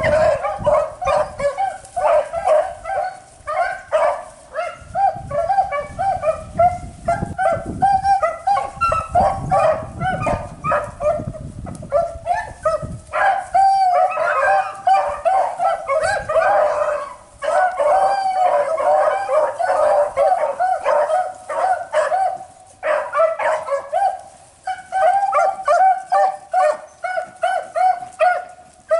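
A pack of beagles baying on a running rabbit's track, several voices overlapping almost without a break, with a few short lulls. This is hounds giving voice on the scent during the chase.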